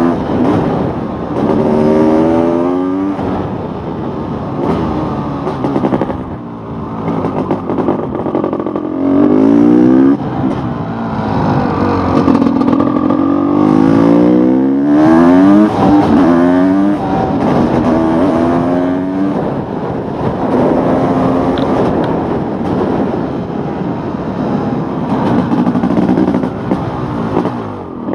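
Honda CR500 two-stroke single-cylinder engine under way on a supermoto, repeatedly revving up in pitch as it accelerates, then dropping back at each shift or roll-off of the throttle.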